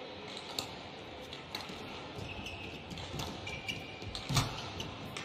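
Badminton rally: sharp clicks of racket strings hitting the shuttlecock about once a second, short squeaks of court shoes, and a louder thump about four seconds in.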